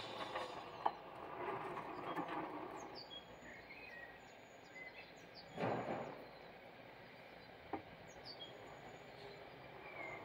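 Faint, high bird chirps, with a sharp click about a second in, a brief rustle near the middle and another click later on, from long metal bonsai tweezers working among the fleshy leaves of a jade plant.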